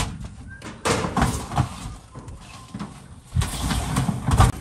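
Irregular knocks and bangs mixed with scraping and rustling, with no steady motor tone.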